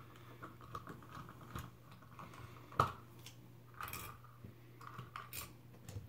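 Faint, scattered small clicks and light scrapes of hands handling a wall outlet and small hand tools, with one sharper click about three seconds in.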